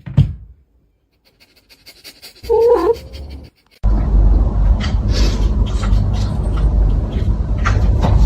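A cat's short call about two and a half seconds in, followed by a long loud rough noise with scattered clicks, starting about four seconds in.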